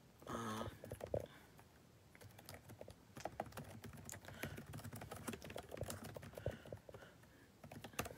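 Quiet typing on a computer keyboard: irregular runs of quick clicks, after a short murmur of voice near the start.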